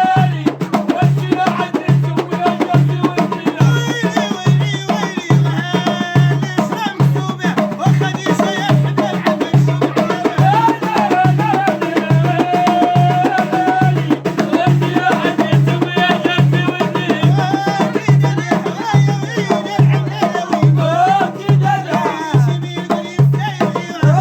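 Moroccan aita folk music: a steady drum beat a little faster than once a second under a sliding, wavering melody line.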